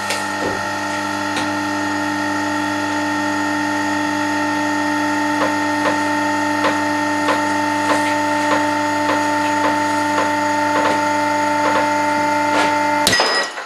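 Motor of a pull-testing rig running steadily with a whine of several fixed tones while it loads a worn pulley on a steel cable. From about a third of the way in, regular clicks come about one and a half times a second. Near the end it cuts off abruptly with a sharp crack.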